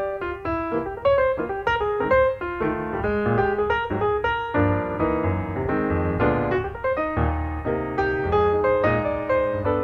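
Background piano music: a quick, steady run of notes over low bass notes.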